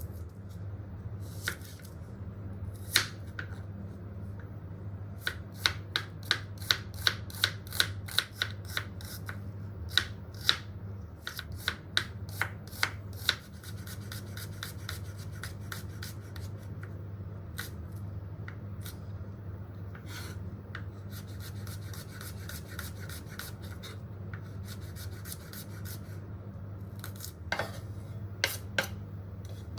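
Vegetables being worked by hand in the kitchen: runs of quick, regular scraping or cutting strokes, about three or four a second, in several bursts, over a steady low hum.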